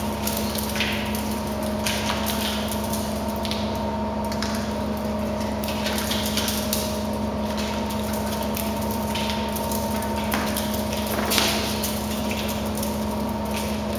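Steady machinery hum with a low drone and a fainter higher tone, under short hissing swells that come and go at irregular intervals of a second or two.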